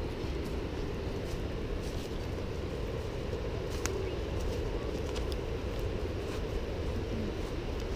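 Steady low rumbling noise from a camera carried along by a walking hiker on a dirt forest trail, with a few faint clicks and taps.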